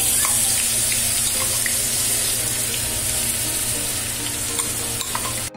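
Ground onion, garlic, tomato and green chilli paste sizzling loudly as it is scraped into hot oil in a steel kadai, with a few light clicks of a spoon against the steel bowl and pan. The sizzle cuts off suddenly near the end.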